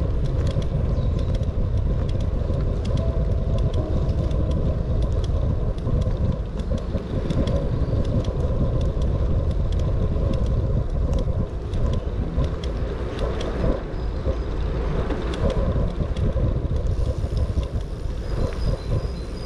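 Bicycle riding on an asphalt path heard from a camera on the moving bike: a steady low rumble of tyres and air rushing past, with frequent small rattles and clicks from the bike.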